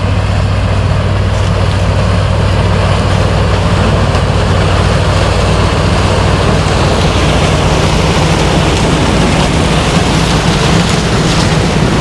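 Heavy farm machinery engine running steadily with a low drone. About halfway through a second, somewhat higher engine note comes in and grows louder.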